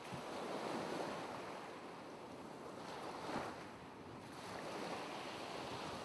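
Ocean waves washing on a shore: a steady rushing surf that swells about a second in and again a little after three seconds.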